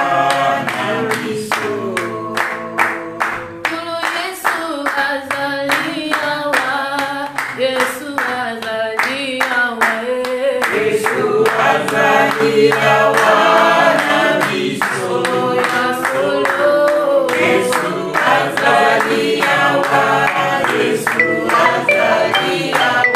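A small group singing a worship song together, with rhythmic hand clapping keeping the beat.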